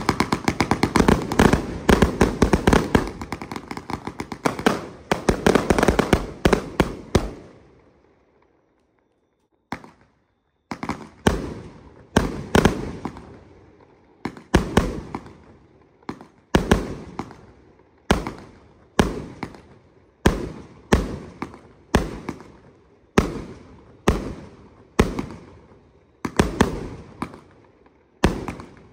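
A 144-shot compound fireworks cake with 30 mm tubes firing: a rapid string of shots for about seven seconds that dies away, a short silent gap, then single shots about one a second, each fading quickly.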